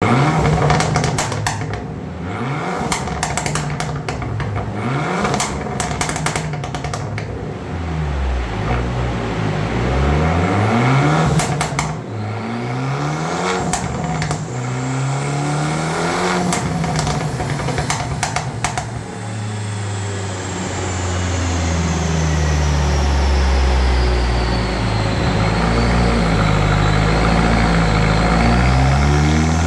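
Fiat Abarth 595 T-Jet's turbocharged 1.4 four-cylinder being revved in repeated blips, with sharp crackles and pops on the overrun. About 19 seconds in it settles into a longer, steadier run, with a high whine that dips and then rises.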